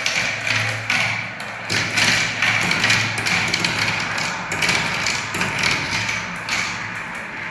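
Marbles rolling down a spiral marble-run track: a continuous rolling rattle with many quick clicks and taps as the balls knock against the track and each other.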